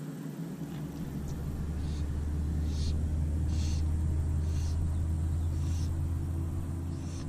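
A low steady rumble, like a distant motor, swells over a few seconds and eases off near the end, with faint short splashes of water about once a second.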